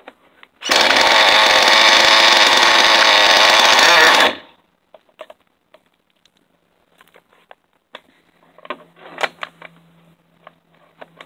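Nitro engine of an MGT 8.0 RC monster truck being spun over by an electric starter for about three and a half seconds during a cold start, then cutting off suddenly without running on. Scattered clicks of handling follow, with a faint steady hum near the end.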